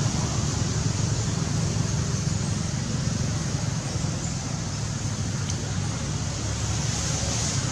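Steady outdoor background noise: a continuous low rumble with a high hiss on top, with no distinct events.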